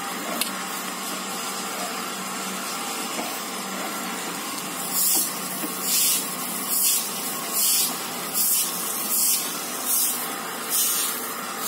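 A sprayer squirting cleaner in about nine short, evenly spaced hissing bursts, a little under a second apart, starting about five seconds in, over a steady hiss.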